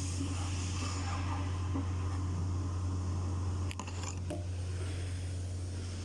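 Metal parts of an opened hydraulic travel motor being handled, with light scraping and two sharp clicks a little past the middle, over a steady low hum.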